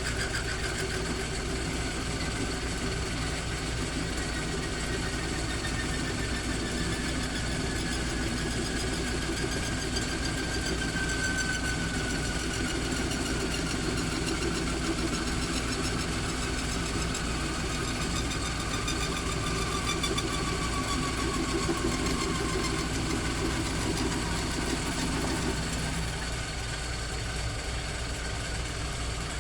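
1929 South Bend lathe running while a parting tool cuts into spinning 303 stainless steel, with a thin whine that slowly falls in pitch. About 26 s in the cutting sound drops away and the lathe runs on more quietly.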